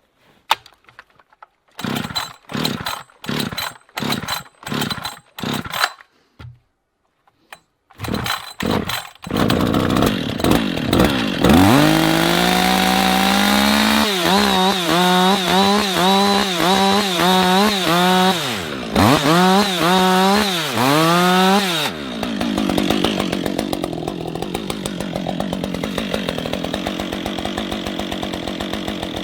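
Husqvarna chainsaw being pull-started: a run of quick rope pulls that fail to catch, then the engine fires about nine or ten seconds in and revs up. The throttle is blipped up and down about once a second for several seconds, and the saw then runs steadily at high speed. The saw was just called a hard starter that smells of raw fuel.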